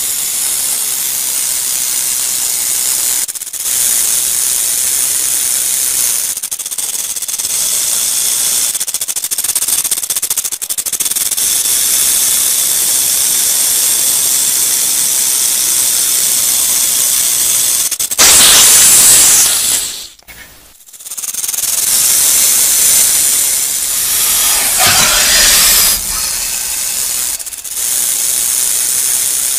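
Rattlesnake buzzing its tail rattle: a continuous dry, high-pitched hiss with a few brief breaks, swelling louder just before a short pause about two-thirds of the way through.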